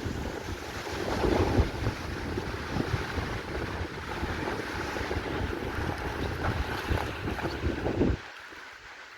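Strong wind buffeting the microphone: a loud, gusty rumble that drops away abruptly about eight seconds in.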